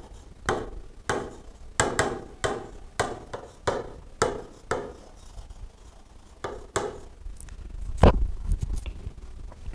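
Stylus pen tapping and clicking on the glass of an interactive touchscreen board while words are written, a sharp tick about every half second. Near the end comes a louder, deeper bump as a hand brushes the headset microphone.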